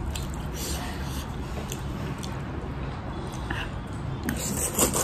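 Instant ramen noodles being eaten: a fork twirling them on a ceramic plate with a few light clicks, then a loud slurp of the noodles near the end, over a steady low hum.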